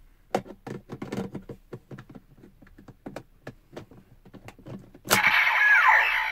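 Small plastic clicks and rattles of a DX Ziku Driver toy belt and Ride Watches being handled. A sharp click about five seconds in sets off the toy's loud electronic sound effect, which includes a falling tone.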